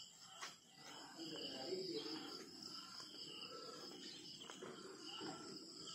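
Crickets or similar insects chirring steadily at a high pitch, with faint distant voices underneath.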